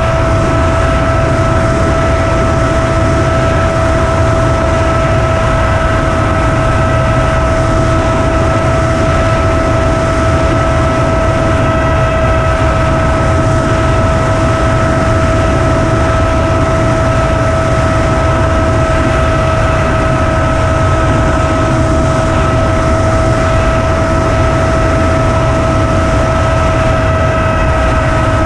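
Onboard sound of an FPV flying wing in flight: the electric motor and propeller give a steady whine at a nearly constant pitch, under heavy wind rumble on the camera's microphone.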